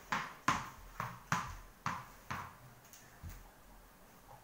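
Tennis ball bouncing on a hard marble floor, about two bounces a second, each fainter than the last, dying away a little after three seconds in.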